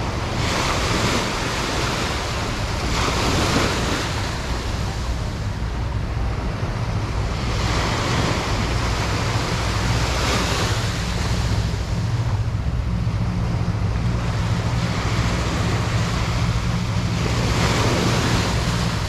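Small surf breaking and washing up a sandy beach, the hiss of the water swelling every two to three seconds as each wave comes in. Wind rumbles steadily on the microphone underneath.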